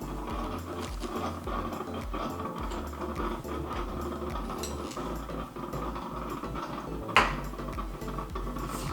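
Light knocks and clicks of kitchen dishes and utensils over a steady background hum, with one sharp clink about seven seconds in.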